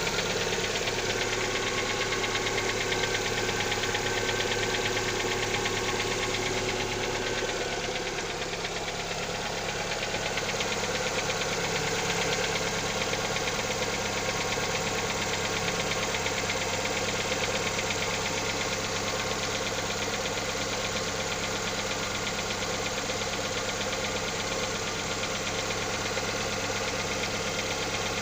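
Lada XRAY engine idling cold, with a fast, even knocking in time with the engine running through the steady idle. The owner does not know its cause. The sound dips slightly about eight seconds in.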